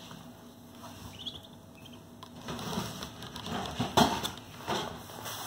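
Muscovy ducklings pecking at feed on a paper towel: a run of short scratchy taps and rustles that builds from about halfway through, with the sharpest, loudest tap about four seconds in, over a low steady hum.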